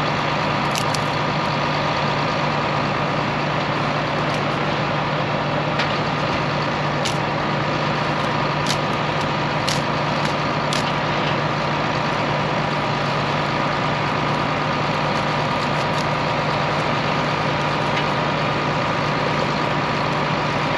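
Heavy diesel farm machinery engine running steadily at a constant speed, with a few faint clicks over it.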